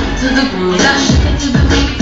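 Loud dance music with a heavy bass beat, about two beats a second.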